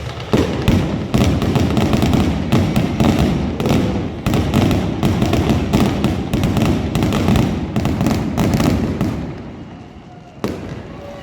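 Aerial fireworks going off in a dense run of bangs and crackles, easing off in a lull about nine seconds in before more bangs near the end.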